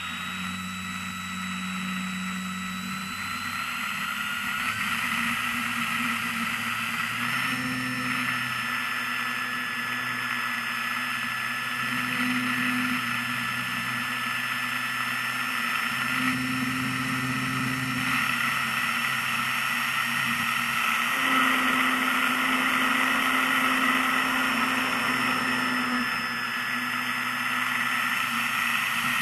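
Motor and propeller of a foam radio-controlled airplane in flight, heard from a camera on the airframe: a steady high whine over wind rush. The pitch steps up slightly twice in the first several seconds and dips briefly near the end.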